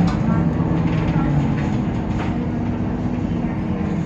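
Temsa Avenue LF city bus with its DAF PR 228 diesel engine running under way: a steady low drone and rumble, with a few short clicks and rattles.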